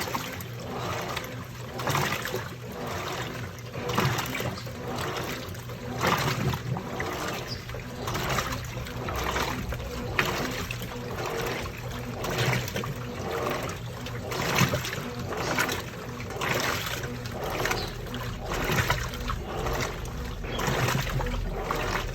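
Washing machine running a wash cycle: water sloshing in swells every second or two over a steady motor hum.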